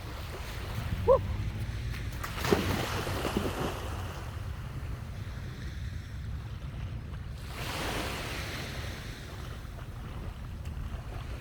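Sea waves washing ashore, swelling twice, with wind buffeting the microphone as a steady low rumble. A short pitched call sounds about a second in.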